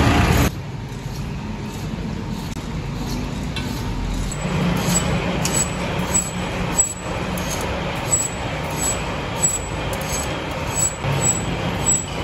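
Workshop machinery running with a steady hum, with a faint regular tick about one and a half times a second. A louder sound cuts off abruptly about half a second in.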